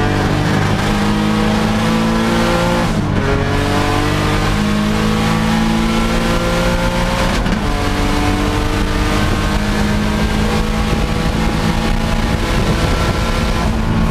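Turbocharged Infiniti G35 V6 heard from inside the cabin, accelerating hard at full throttle through the gears. The engine note climbs steadily in each gear, with two upshifts about three and seven and a half seconds in.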